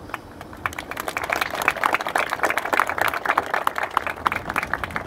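A small audience clapping, starting about half a second in and building to a steady spatter of many hands.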